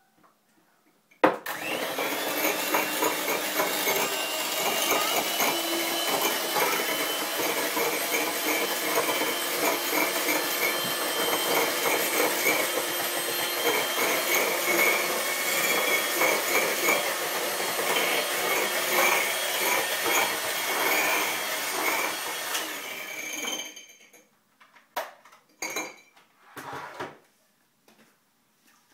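An electric kitchen appliance's motor switches on abruptly and runs with a steady, rough grinding whir for about twenty seconds, then winds down and stops. A few short knocks follow near the end.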